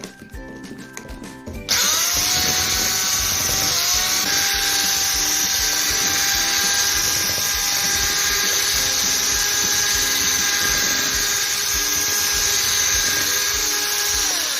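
Electric hand mixer switched on about two seconds in, its motor whirring up to speed and then running steadily while it beats the mixture, winding down at the very end. Background music plays before it starts.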